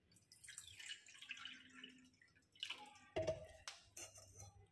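Faint handling noises: soft rustling, then a few light knocks and clinks from about halfway through.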